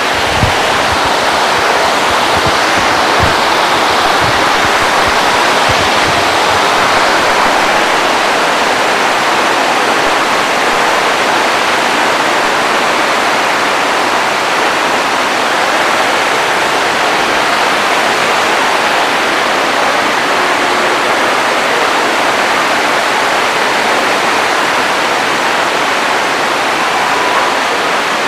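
Heavy rain on the roof of a hall, a loud steady hiss that does not let up. A few low thumps come in the first few seconds.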